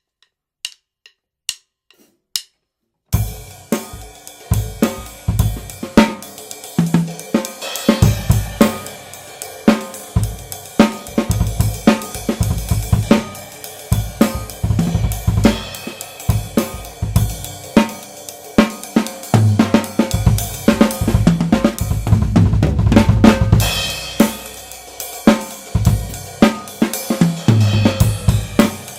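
Tama Swingstar drum kit with Meinl cymbals being played: after a few quiet clicks, a full groove of bass drum, snare, hi-hat and cymbals starts about three seconds in and runs on steadily, recorded through a Blue Yeti USB microphone.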